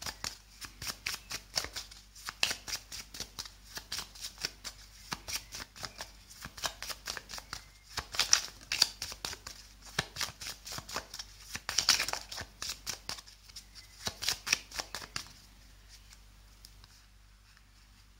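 A deck of cards being shuffled by hand: a quick run of light papery card clicks and slaps, several a second, that stops about fifteen seconds in.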